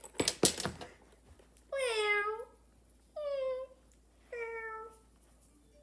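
A few quick knocks, then three meows, each a single call that falls in pitch, about a second apart.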